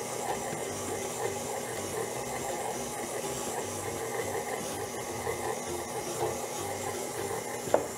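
KitchenAid stand mixer running steadily at medium speed, its paddle beating a wet, heavy brioche dough as cold butter is worked in. A single sharp knock comes near the end.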